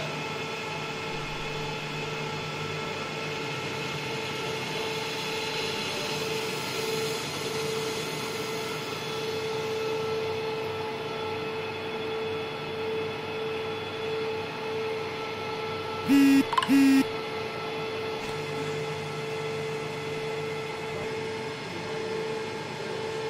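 Metal lathe running and turning a metal bar with a carbide insert tool, with a steady whine from the machine. About two-thirds of the way through, two short loud beeps sound in quick succession.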